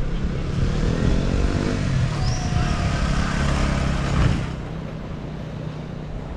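A motor vehicle's engine passing close by, its pitch sliding as it goes, then dropping away abruptly about four seconds in to quieter street background.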